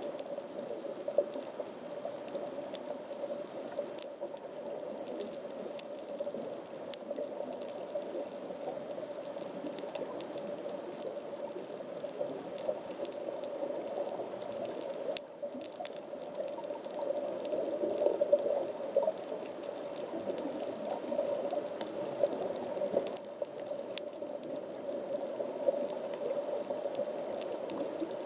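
Underwater sea sound on a coral reef at about 15 m depth, heard through a waterproof camera housing: a steady wash with scattered sharp clicks and crackles throughout.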